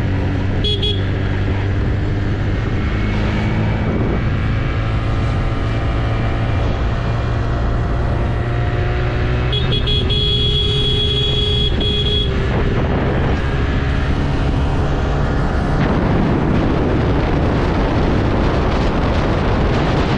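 Scooter engine running under way, its pitch rising and falling with the throttle, under heavy wind rumble on the microphone. A high steady tone sounds for a couple of seconds about ten seconds in.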